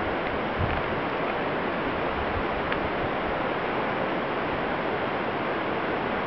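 Steady, even rushing noise that does not change, with no distinct events.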